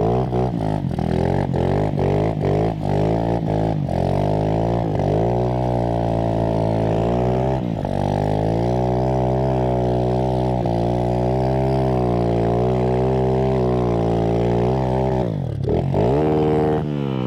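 Small motorcycle engine running while ridden, the revs rising and falling with the throttle: quick, choppy blips in the first few seconds, then longer climbs and easings. Near the end the revs drop sharply and pick up again.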